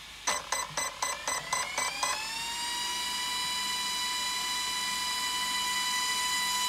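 Electric cooling fans on a Traxxas X-Maxx RC truck powering up: about eight quick pulses over the first two seconds, then a whine that rises in pitch and settles into a steady high hum.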